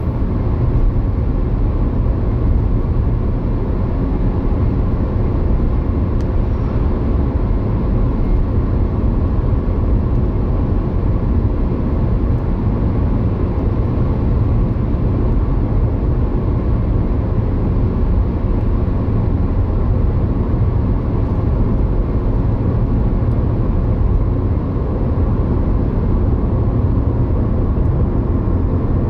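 Steady road and engine noise of a car driving, heard inside the cabin, with a low rumble and no changes.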